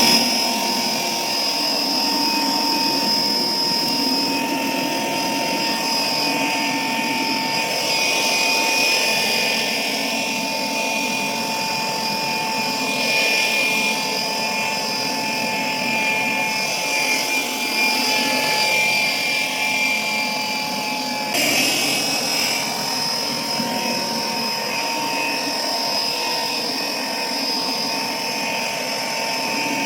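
Air blower running at a steady speed: a continuous fan rush with a high motor whine, briefly wavering about two-thirds of the way through.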